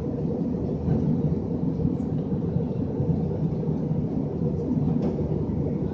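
Cabin noise of an Airbus A320 in flight, heard from a window seat: a steady low rumble.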